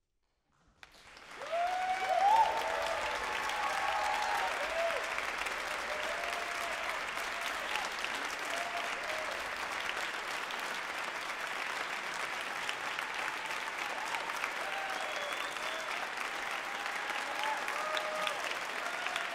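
Concert audience applauding and cheering. The applause starts abruptly about a second in and stays steady, with shouts and whoops over it, loudest about two seconds in.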